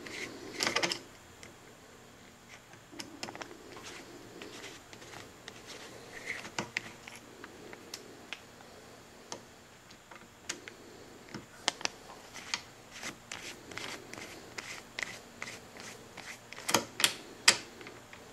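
Small metal tools and parts being handled: a transfer punch is taken out of the AK-47 stock adapter and the aluminium adapter is worked loose from the receiver, giving scattered light clicks and knocks. A louder cluster of knocks comes about half a second in and again near the end.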